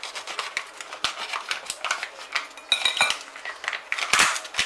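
A kitchen knife cutting open a camembert's plastic packaging, then the wrapper being pulled and crinkled off by hand: a busy run of sharp clicks, scrapes and crackles, with the knife knocking against the plate.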